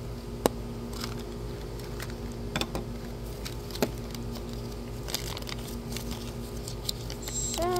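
A plastic mystery-figure capsule snapping open with a sharp click, followed by scattered clicks and crinkling as the foil bag, plastic wrap and paper checklist inside are handled.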